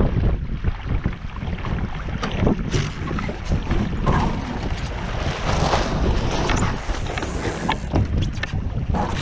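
Wind buffeting the microphone over water rushing and splashing along a Finn dinghy's hull, with scattered short knocks and a stretch of louder hiss about five to six seconds in.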